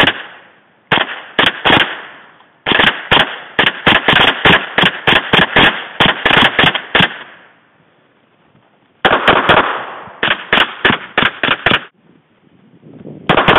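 .22 rimfire semi-automatic gunfire: a Ruger 10/22 rifle with a red dot and a .22 pistol firing rapid strings of shots, about five a second. There is a long string of about twenty shots, a pause of a second or so, a string of about ten, and then another fast string near the end.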